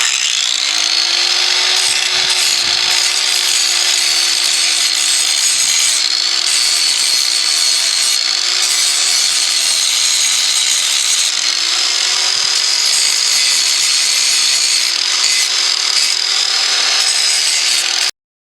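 Angle grinder grinding the steel of a forged railroad-spike knife blade: a steady high whine over a loud grinding rasp, its pitch wavering slightly as the load changes. It cuts off suddenly near the end.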